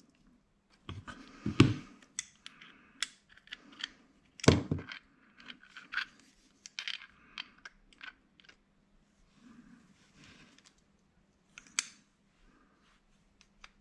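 Metal hand tools handled on a workbench: locking pliers (vice grips) being picked up, adjusted and clamped onto a bolt, with irregular clicks and clanks of metal on metal. The loudest knocks come about a second and a half and four and a half seconds in, with another near the end.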